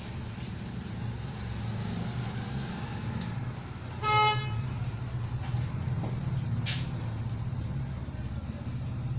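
A vehicle horn toots once, briefly, about four seconds in, over a steady low hum. A short hiss comes near seven seconds.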